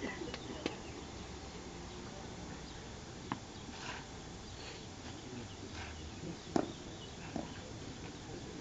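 Quiet outdoor ambience beside a clay tennis court between points: faint background murmur broken by a few short, sharp knocks, the loudest about two-thirds of the way in.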